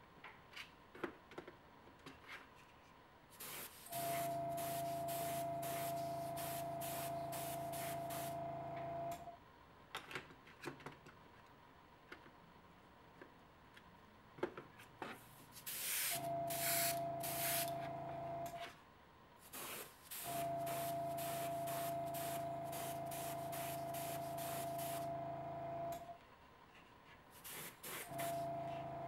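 Badger 150 airbrush spraying light coats of white paint in a hiss that comes and goes. A small air compressor's motor runs with a steady hum through four stretches of a few seconds each, starting and stopping as the air is drawn.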